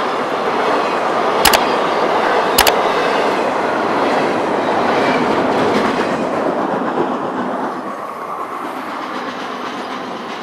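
Freight train cars rolling past with steady wheel-on-rail noise and clickety-clack, and two sharp clicks about a second and a half and two and a half seconds in. The sound eases off over the last few seconds.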